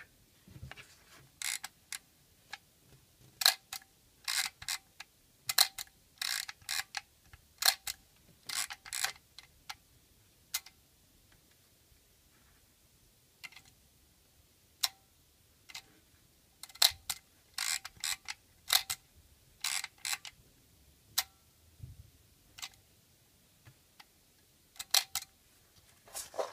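Olympus PEN EE-3 half-frame film camera worked by hand: a long string of sharp mechanical clicks from its shutter and controls, often in quick clusters of two to four, with pauses between them.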